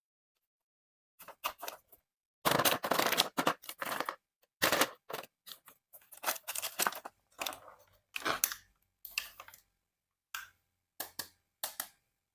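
Toy packaging being handled and opened: an irregular run of crinkles, rustles and sharp clicks, the longest stretch of crinkling about two to four seconds in.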